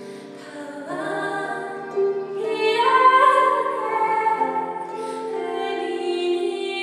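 A woman singing, accompanying herself on the harp; the voice swells to its loudest about three seconds in.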